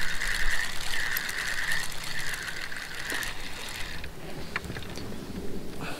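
Spinning reel being wound by hand, its gears whirring in about three pulses with fine clicking, then stopping a little past halfway.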